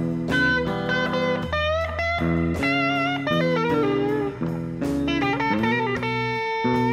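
Live blues band playing an instrumental break: a guitar solo of bent notes with vibrato over bass and drums, ending on one long held note near the end.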